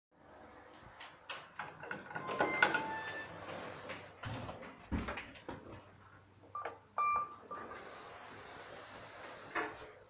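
Inside a KONE elevator car: scattered clicks and knocks, with two short beeps from the car's push buttons about seven seconds in, right after a button is pressed. A steady hiss follows for a couple of seconds near the end.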